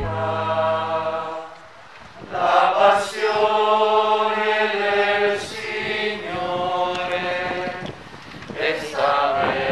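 Group of voices singing a slow liturgical hymn in long held phrases, with short breaths between them. A held low instrumental note from the music before it fades out about a second in.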